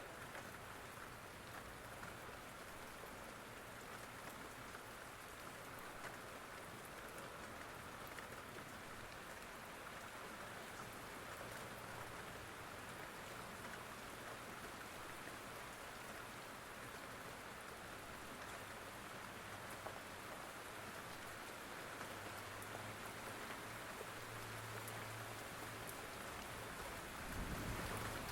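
Steady rain falling, an even hiss of drops on a surface. A brief low rumble swells near the end.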